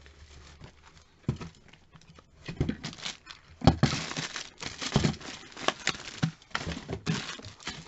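Clear plastic packaging crinkling and rustling, with irregular light knocks, as a bagged hairbrush and other packaged items are picked up and moved about. The handling gets busier after the first couple of seconds.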